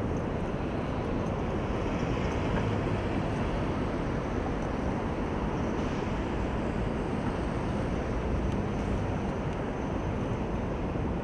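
Steady city traffic noise, a continuous low rumble of passing vehicles on a downtown street.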